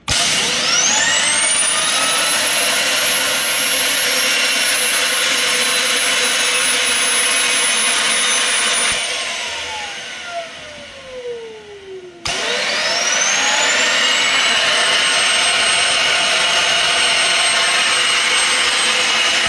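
Small Tesla turbine with a 3-inch rotor driven by a rushing jet of steam. A high whine rises steeply as the rotor spins up and holds at a very high pitch. About nine seconds in, the steam eases and the whine falls as the rotor coasts down; about three seconds later the jet cuts back in and the whine climbs and holds again.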